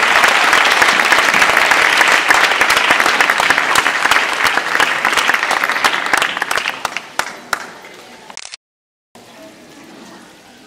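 Audience applauding, a dense patter of many hands that stays loud for several seconds and then thins out and dies away about 7 to 8 seconds in. A brief dead-silent break follows, then only quieter room noise.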